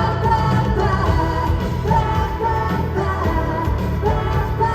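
Live K-pop music played loud over a concert PA: a full pop track with a heavy bass beat and a sung melody.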